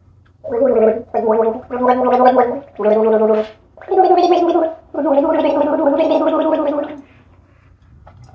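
A woman's wordless, gargling vocal sounds in six held bursts, the last and longest lasting about two seconds.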